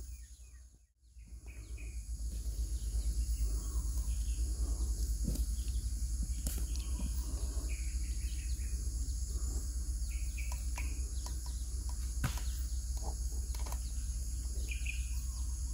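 Field ambience: a steady low rumble with birds chirping now and then and a few sharp ticks.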